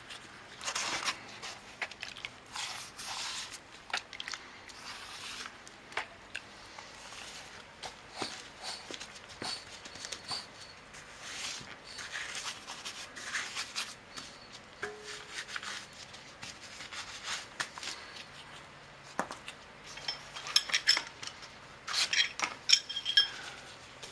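Metal tools clinking and scraping against a dirt bike's wheel rim, with rubber rubbing, as a tight tire is worked loose from the rim. Scattered knocks and scrapes throughout, with a burst of sharper ringing metal clinks near the end.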